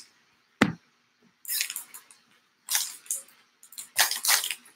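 2019 Allen & Ginter baseball cards being handled and set onto stacks on a table: a single sharp tap about half a second in, then several brief rustling slides of card against card.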